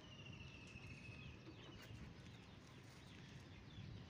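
Faint birds chirping over a low background rumble, with one long trill in the first second.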